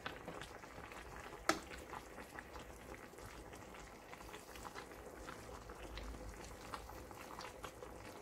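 Braised beef short ribs and vegetables simmering in their soy sauce in a stainless steel pan: a faint steady bubbling dotted with small pops. Once, about a second and a half in, a utensil gives a sharp clink against the pan.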